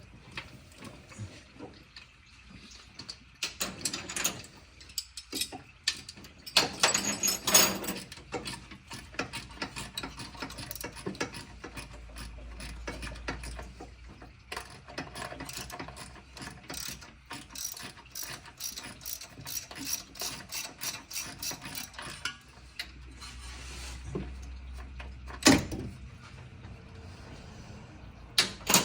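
Hand ratchet wrench clicking in quick runs as bolts are worked loose on a car engine, with a few louder metal clanks of tools.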